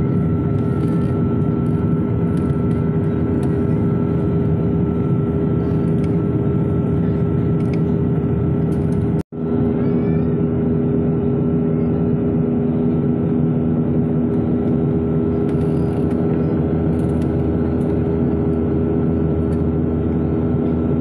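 Steady jet-engine drone inside an airliner cabin, a constant rushing noise with several steady hums. The sound drops out for an instant about nine seconds in.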